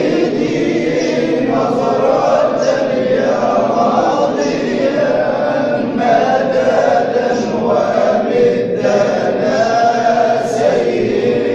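A group of voices chanting Sufi dhikr together in unison, a continuous, dense choral chant.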